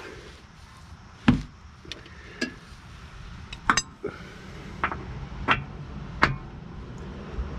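Sharp clicks and knocks from a wrench and 18 mm six-point socket, about eight at uneven spacing over several seconds. The wrench is being worked to turn a torque-to-yield steering-rack bolt a further 90 degrees after its first torque step.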